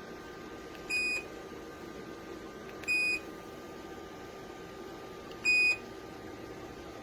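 Three short electronic beeps from the JIBUFI 1500W PTC space heater's control panel as its buttons are pressed: one about a second in, one at about three seconds and one about five and a half seconds in. Under them the heater's fan runs with a steady hiss.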